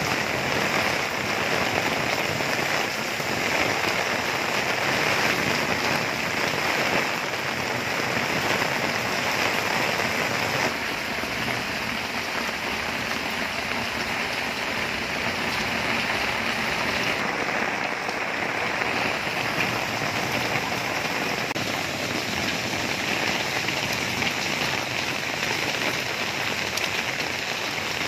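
Heavy rain pouring steadily, with water streaming off the edge of an umbrella held overhead. The rain eases slightly about ten seconds in.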